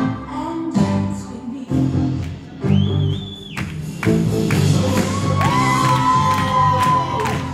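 Recorded stage-show music with singing and a beat, playing over the hall's sound system; a short high held note comes about three seconds in, and a long held note runs through the second half.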